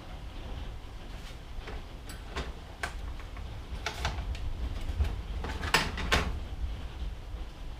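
Sharp clicks and clacks of drill bits and their plastic case being handled while a bit is picked out, with the loudest pair of knocks close together near the end, over a steady low hum.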